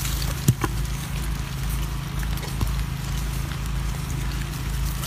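Macaques handling and eating bananas on a stone path: scattered small clicks and rustles over a steady low rumble, with one sharp knock about half a second in.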